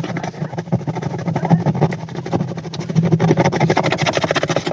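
A motor running steadily with a fast, even rattle.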